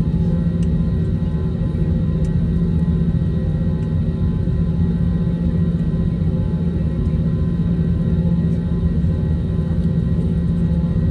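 Steady low cabin hum of an Airbus A321 on the ground, with its jet engines running at low power as it taxis. The hum stays even, with a low droning tone and no spool-up.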